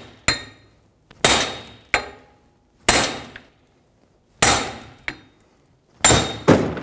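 Steel hammer striking a second hammer held against a Honda Pilot front wheel hub to drive the hub out of its wheel bearing in the steering knuckle. About seven sharp metal-on-metal blows with a ringing tail, roughly a second apart, two of them close together near the end as the hub breaks free.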